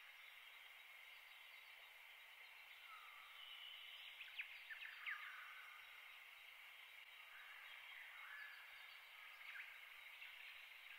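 Near silence: faint steady background hiss, with a few faint short chirps about four to five seconds in and again near the end.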